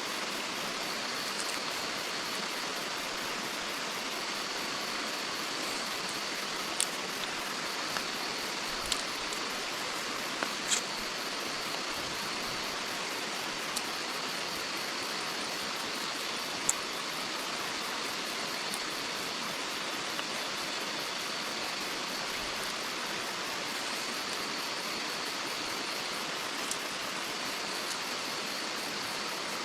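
Steady water noise, an even hiss of rain or running water, with a handful of sharp ticks scattered through it and a faint steady high note underneath.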